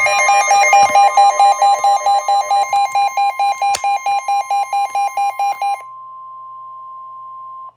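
Weather radio warning alert tone: a steady tone near 1 kHz with a loud buzzy alarm beeping over it at about four beeps a second, the signal that a severe weather warning is about to be read. The beeping stops about six seconds in, and the steady tone carries on alone until it cuts off just before the end.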